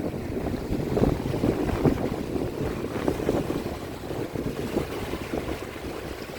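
Wind buffeting the microphone in an irregular, gusty low rumble, with small waves lapping on a lake shore.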